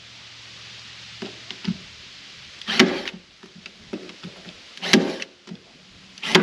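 Cordless driver backing screws out of wooden cleats on a sheathed wall, in three short loud bursts about two seconds apart, with a few lighter knocks of wood before them.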